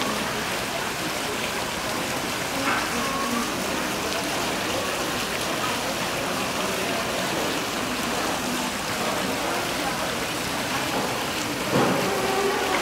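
Fountain jets splashing into a shallow pool: a steady rush of falling and running water, with a brief louder splash or knock near the end.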